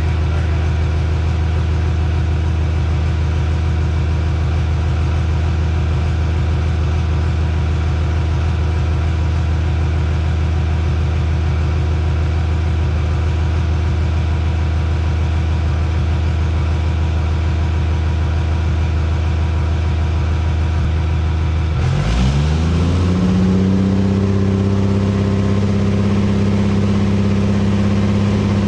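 Cummins diesel drag truck engine idling steadily on a stock tune. About three-quarters of the way through, the revs rise quickly and hold at a higher steady speed.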